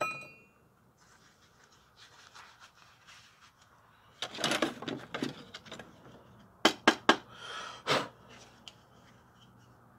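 Handling noises around an idle belt grinder: a short metallic ring at the very start, then rustling and scuffing, with a quick run of three sharp clicks a little past the middle. No motor is running.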